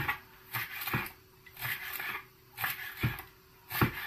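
Knife chopping fresh dill finely on a wooden cutting board: a series of short, uneven strokes of the blade on the board.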